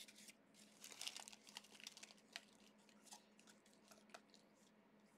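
Faint crinkling and tearing of a trading-card pack wrapper being opened, densest in the first couple of seconds, then a few scattered light crackles.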